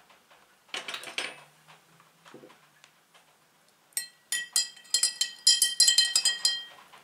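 A teaspoon stirring starter into milk in a glass jar, clinking rapidly and repeatedly against the glass for about two and a half seconds in the second half. A brief scraping rustle comes about a second in.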